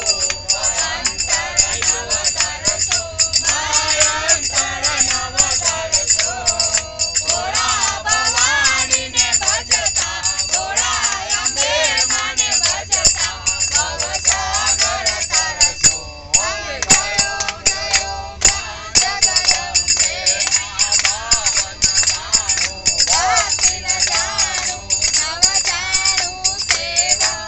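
A group of people singing a Hindu devotional song (bhajan) together, with steady rhythmic hand clapping.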